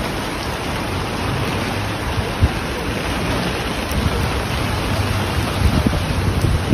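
Typhoon rainstorm: an even hiss of heavy rain, with a gusty low rumble of wind underneath.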